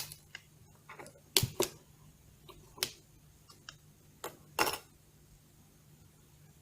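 Sharp clicks and taps from hands and tools working inside an opened Nexus 5 smartphone as its battery is taken out: about half a dozen scattered clicks in the first five seconds, then only a faint hum.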